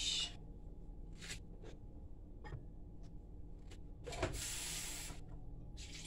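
Kitchen handling noises at the sink: a few soft rubs and knocks, then a hiss lasting about a second, a little past four seconds in, with a shorter one near the end.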